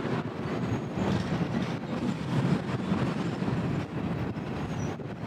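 Freight train of covered hopper cars rolling past, a steady rumble of steel wheels on the rails.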